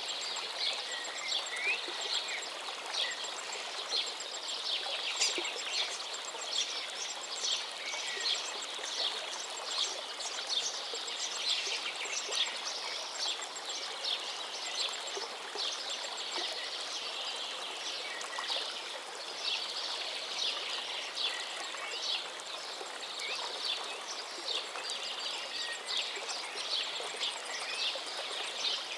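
Food sizzling and crackling in hot oil in a cooking pot, a dense, steady spatter of small pops.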